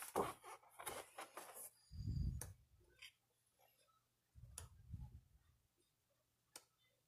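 Faint handling of a 12x12 scrapbook paper pad as its sheets are turned: soft paper rustling, two low soft thumps about two seconds in and again near five seconds, and a few sharp ticks.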